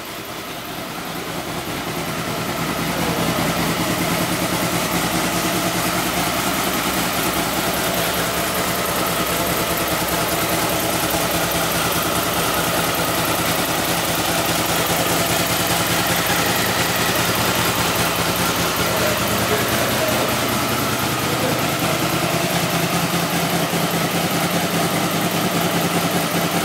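Honda VFR800 VTEC's V4 engine idling steadily. It grows louder over the first few seconds, then holds an even pitch.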